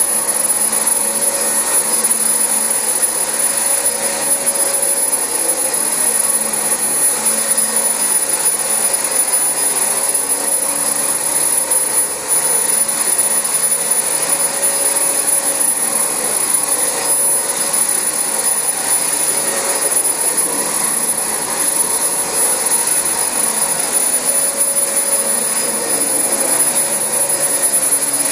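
Dyson DC25 upright ball vacuum cleaner running steadily over carpet, its motor giving a constant high-pitched whine.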